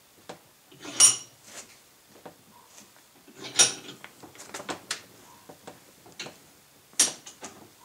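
Three sharp metallic clanks that ring briefly, about a second in, past the middle and near the end, with smaller clicks and knocks between: steel on steel as a socket is driven against a U-joint bearing cup in a vise to seat the snap-ring clip in its groove.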